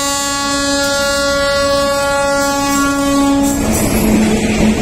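Passing diesel locomotive's horn sounding one long steady blast as it approaches at speed, its note dropping and the blast ending as the locomotive passes, about three and a half seconds in. After that the engine and the wheels of the coaches rumble and clatter by.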